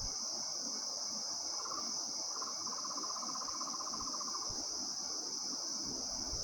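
Steady high-pitched drone of a tropical forest insect chorus. A rapid, finely pulsed trill joins it from about a second and a half in and stops about three seconds later.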